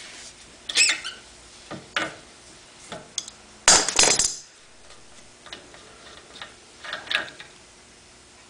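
Metal clinks and clicks of an adjustable wrench working a brass check-valve cap on a chemical-pump head clamped in a bench vise, one clink ringing briefly about a second in. The loudest sound is a clatter about four seconds in as the wrench is set down on the workbench.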